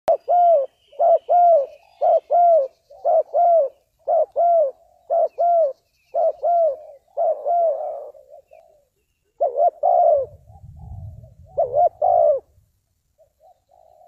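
Spotted dove cooing: a run of arched coos in pairs, about one pair a second, breaking off around eight seconds in, then a few more coos before it stops near the end.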